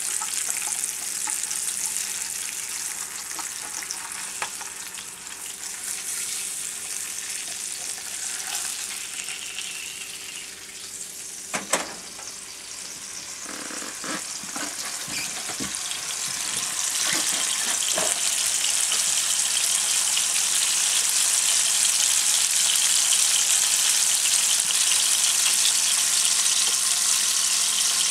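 Sockeye salmon fillets sizzling in hot oil in a nonstick frying pan, searing on their second side after being turned. A sharp click comes about a third of the way in and a few light knocks follow, and the sizzling grows louder over the last part.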